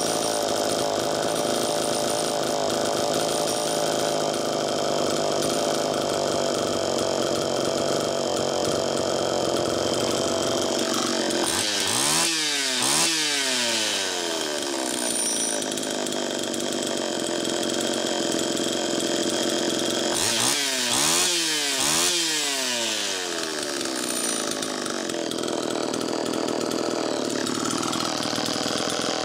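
Homelite Super EZ two-stroke chainsaw engine idling steadily while its carburetor is tuned. The engine is revved up and let fall back twice about twelve seconds in, and three times about twenty-one seconds in. The low-speed mixture and idle speed are being corrected after being set far too lean and too high, and the saw settles into a good idle.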